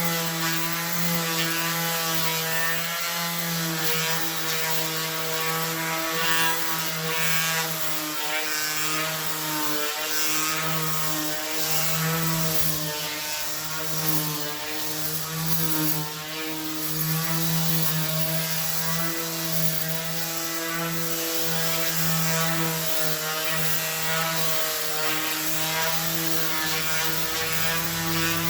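Power sander with 100-grit paper running against a rusty jointer's metal, sanding off rust: a steady motor hum whose pitch wavers slightly as the pressure changes.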